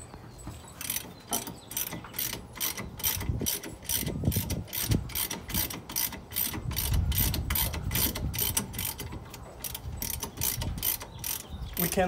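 Hand ratchet wrench clicking steadily, about three to four clicks a second, as a loosened brake caliper bolt is spun out by hand.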